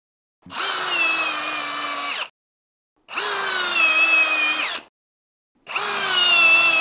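Ridgid 18V brushless high-torque hammer drill driving a 5-inch SPAX PowerLag screw into wood, three separate runs of under two seconds each with silence between. The motor whine sags slightly in pitch under load as the screw goes in, then cuts off suddenly.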